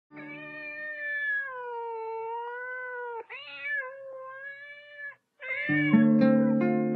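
Cat meowing: one long drawn-out meow that sways slightly in pitch, then a shorter, broken meow. Near the end a few steady low notes come in beneath further meowing.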